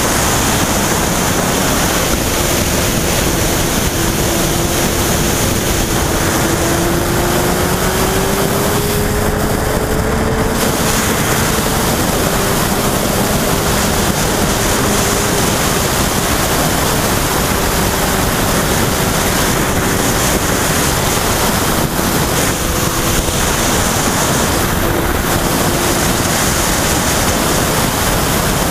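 Loud wind rushing over the microphone of a camera on a Yamaha FZ1 motorcycle at road speed, with the bike's inline-four engine heard faintly beneath it. The engine note rises about six to ten seconds in, then holds steady.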